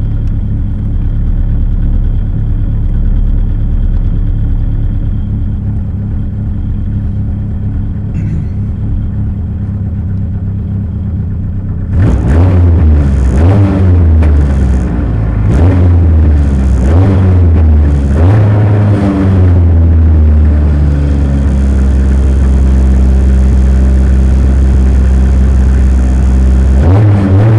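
Rally car's engine idling at the stage start, then from about twelve seconds in revved in a string of quick blips, rising and falling. From about twenty seconds it is held at steady raised revs, ready for the launch, and the revs climb again near the end.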